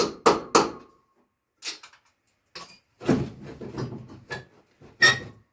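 Hammer blows on metal: three quick strikes about a third of a second apart, a pause with a few light knocks, a short stretch of metal clattering, then one last hard strike that rings.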